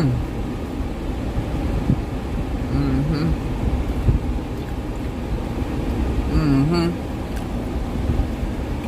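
A person hums two short 'mm' sounds of appreciation while tasting food, over a steady low rumble.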